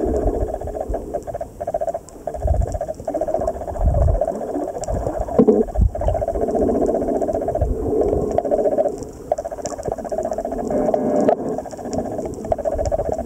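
Muffled underwater sound picked up by a camera held just below the surface: a steady murky hum with irregular low rumbles and sloshes of water moving around the housing, and faint scattered ticks.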